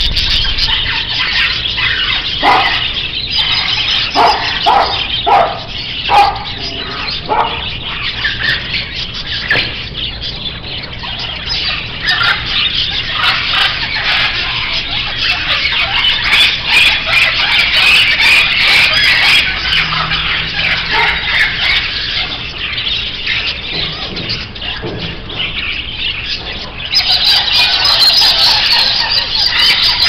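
Dense, continuous chattering and calling of many caged budgerigars and canaries. There are several separate louder, lower calls in the first eight seconds, and the high chatter grows louder near the end.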